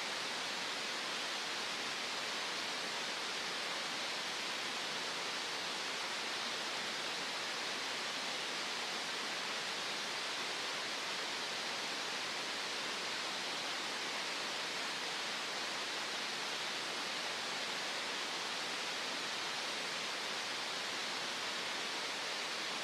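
Steady green noise: an even, unchanging hiss, strongest in the upper middle of the range.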